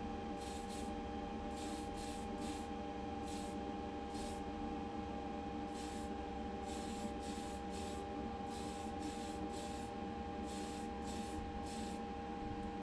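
Paint spraying in many short, irregular bursts of hiss, each well under half a second, over a steady motor hum. The colour coat is being applied to a diecast model's body.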